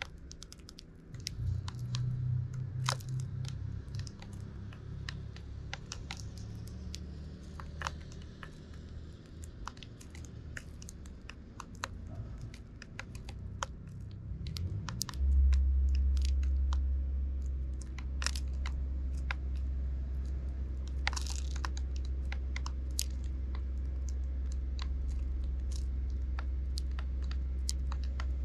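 Eurasian tree sparrows pecking and cracking seeds in plastic feeding trays close to the microphone: quick, irregular sharp clicks and crunches. A steady low rumble sets in about halfway through and is the loudest sound.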